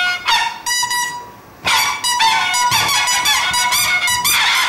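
Buzzy, reedy comic toots blown on small handheld squeakers: a few short notes first, then from about two seconds in a quick run of squawks that slide up and down in pitch like talking.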